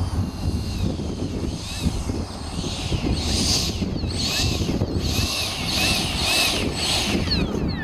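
The electric ducted fan of a Freewing Avanti S model jet whines at taxi power. From a few seconds in it surges briefly about once every second, each surge rising and falling in pitch, over a steady rumble of wind on the microphone.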